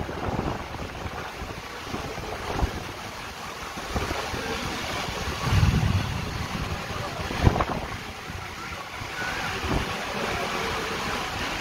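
Heavy rain and gusting wind of a thunderstorm, with the wind buffeting the microphone in low rumbling surges, the strongest about six seconds in. A single sharp knock comes about seven and a half seconds in.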